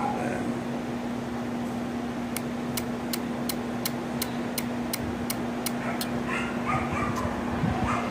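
Small 12 V breadboard relay (HLS-14F3L-DC12V) clicking evenly, about three to four clicks a second, as it oscillates on and off with a capacitor across its coil; the clicking starts about two seconds in and stops near six seconds. A steady low hum runs underneath, and a few short high whines come near the end.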